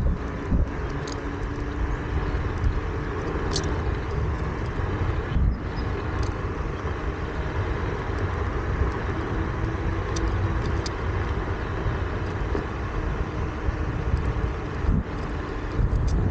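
Onewheel Pint on a Craft & Ride Burris wheel rolling steadily over pavement: even tyre and road noise with a deep rumble, a faint steady hum under it, and a few brief ticks.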